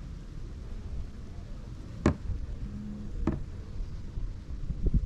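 Two sharp knocks about a second apart, over a low rumble of wind on the microphone.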